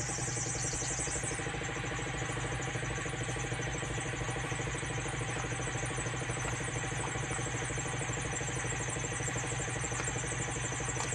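A motor or engine running steadily with an even mechanical hum.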